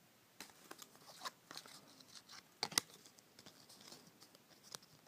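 Baseball trading cards handled and slid one past another, a string of faint, irregular clicks and light rustles with a sharper pair of clicks near the middle.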